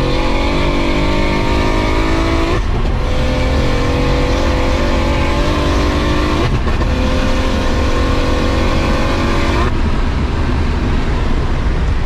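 Heavily tuned big-turbo BMW 335i straight-six at full-throttle acceleration, heard from inside the cabin. The engine note climbs through each gear, broken by three quick upshifts about two and a half, six and a half and nine and a half seconds in.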